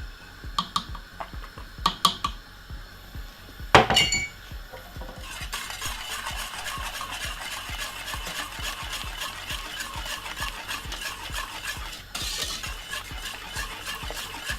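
A utensil knocking against a metal pot a few times, the loudest knock about four seconds in ringing briefly, then fast, steady stirring of cornmeal porridge in the pot from about five seconds in.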